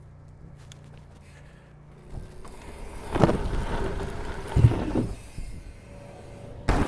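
Wind rush on a helmet camera as a dirt jump bike rolls down a tall wooden roll-in ramp, with several sharp knocks along the way. Near the end comes one heavy, dull thud as the rider lands on an inflated FMX airbag.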